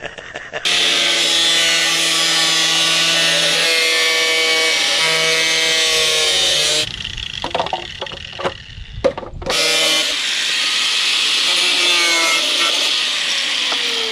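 Power tool running and cutting in two long runs, a steady pitched whine over a harsh hiss, with scattered knocks in the pause between. Near the end its pitch falls as the motor slows.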